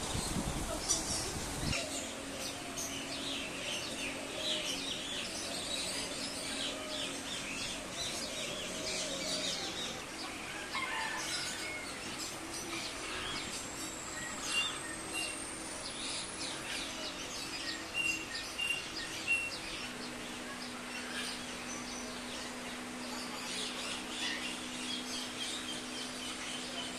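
Many small birds chirping and twittering together, a busy chorus of short high calls. A low rumble in the first couple of seconds.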